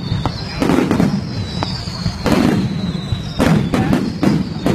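Aerial firework shells bursting overhead: a run of sharp bangs, about one or two a second.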